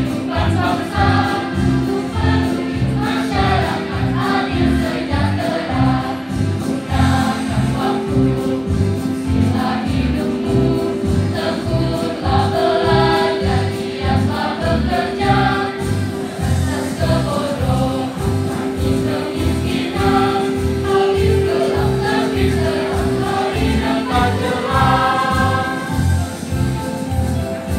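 Mixed youth choir singing together, accompanied by an electronic keyboard that plays a steady bass beat and sustained chords.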